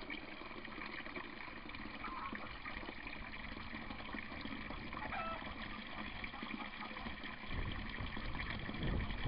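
Water from a U-siphon's outlet pipe pouring in a thin stream into a tub of water, splashing steadily as the siphon starts to draw. The sound grows louder and fuller about seven and a half seconds in.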